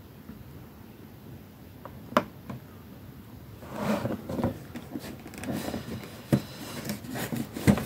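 Cardboard retail box with a plastic window being handled: a single sharp tap about two seconds in, then rubbing and rustling with a few short knocks as the box is moved and set down.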